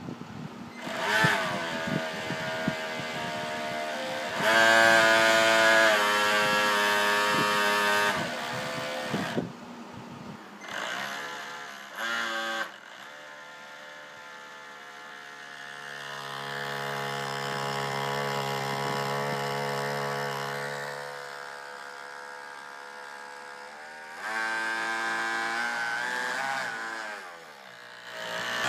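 Small electric motor of a homemade RC boat spinning its propeller out of the water, its whine rising and falling in repeated throttle bursts, with a longer steady run in the middle and a falling spin-down near the end.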